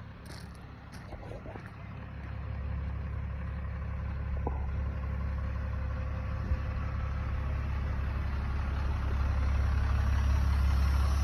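Pickup truck engine idling with a steady low hum that grows louder from about two seconds in, with a few light clicks and knocks.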